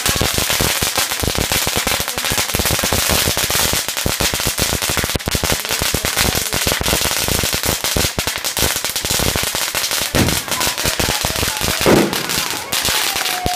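Fireworks and firecrackers going off in a rapid, unbroken string of crackling pops and bangs, with a louder burst near the end.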